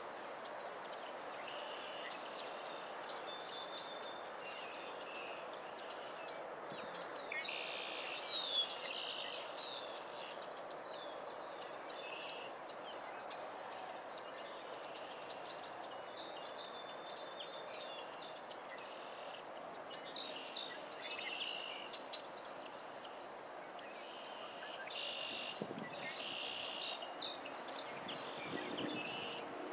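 Outdoor marsh ambience: a steady background hiss with small birds chirping and calling on and off in short high bursts, busiest about a quarter of the way in, again about two-thirds through, and over the last few seconds.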